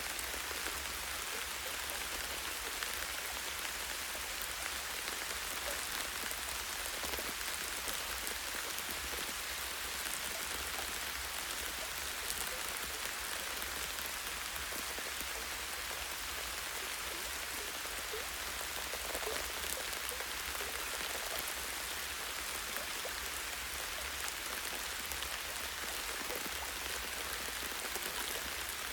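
Light rain falling steadily in a forest, a dense patter of small drops on leaves and a branch, with a faint low rumble underneath.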